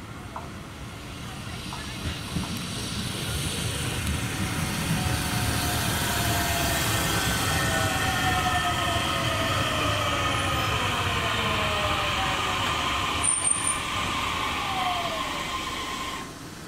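Tokyo Car–built DART electric multiple unit running into the platform on steel rails, with a low rumble of wheels under the electric traction-motor whine. Several whining tones fall slowly in pitch as the train slows. A short sharp click comes about 13 seconds in.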